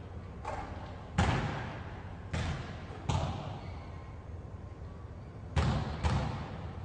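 Basketball bouncing on an indoor court floor: six separate thuds, each followed by hall echo. The loudest hits come about a second in and as a close pair near the end.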